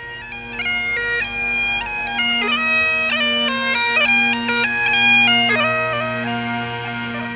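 Bagpipes playing a tune: a melody that steps from note to note, with quick grace notes, over steady unchanging drones.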